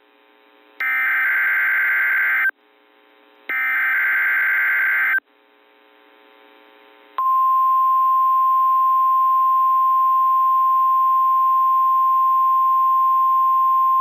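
NOAA Weather Radio weekly test signal: the last two of three SAME digital header bursts, each about 1.7 s long with a second of faint hiss between them. About 7 seconds in, the steady 1050 Hz warning alarm tone comes on and holds.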